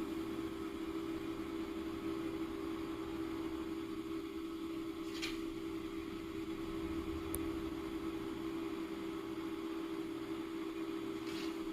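Steady low hum, like a fan or other small appliance, with a faint hiss, and two soft brief sounds about five seconds in and near the end.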